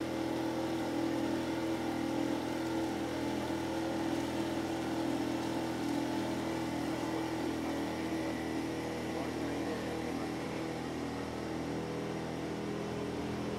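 Motorboat's engine running steadily under way, a constant drone that does not change in pitch or level.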